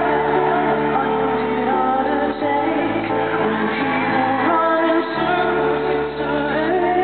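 Male pop singer singing a slow ballad live into a hand microphone over sparse instrumental backing, whose low notes change about every two and a half seconds, through an arena's sound system.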